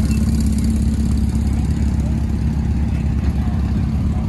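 A car engine idling steadily: a loud, even low hum that does not change.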